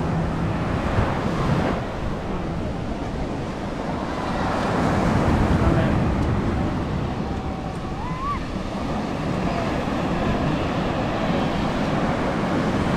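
Surf breaking on the shore in a rough shore break, with wind buffeting the microphone. The wash of the waves swells loudest about five seconds in.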